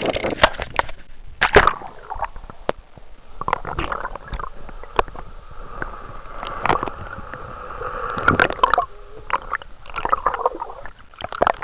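Water sloshing and gurgling around a camera held underwater, muffled, with sharp knocks and splashes now and then.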